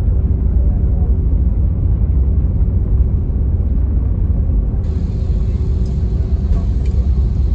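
Loud, steady low rumble inside the cabin of an Airbus A320neo rolling along the runway after landing.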